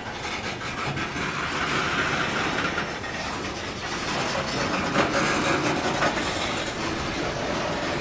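Freight train of covered hopper cars rolling past, steel wheels rumbling on the rails and clacking over rail joints, with a sharper clack about five seconds in.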